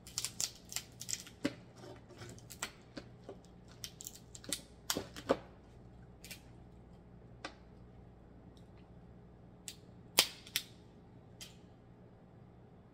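Snow crab leg shells cracked and snapped apart by hand: a quick run of sharp cracks in the first two seconds, then single snaps spaced out, the loudest about ten seconds in.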